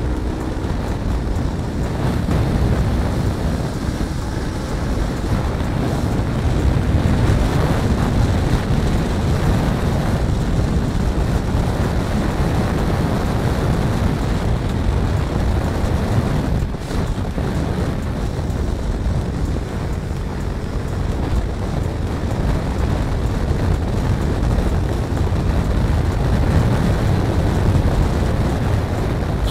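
Wind rushing over the microphone of a first-generation Yamaha R3 riding at road speed: a steady low rumble, with the bike's engine and tyre noise underneath.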